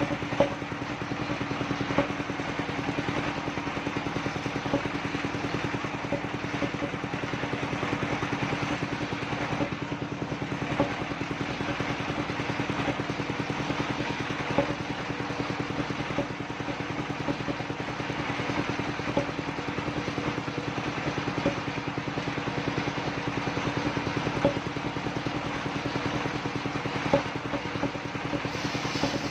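Engine-driven circular sawmill running steadily, with a drone of fast, even pulses and a few sharp knocks.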